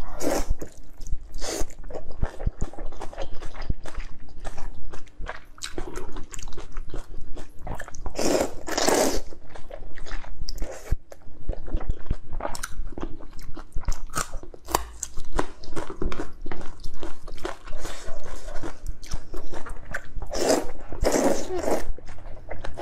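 A person eating noodles from a spicy broth: wet chewing and mouth smacks throughout, with two long slurps of noodles, about eight seconds in and again near the end.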